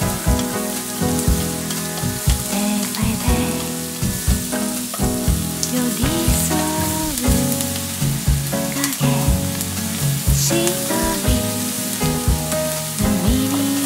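Chopped onions sizzling as they fry in butter in a frying pan while they are stirred with chopsticks. Background music with a melody plays over it.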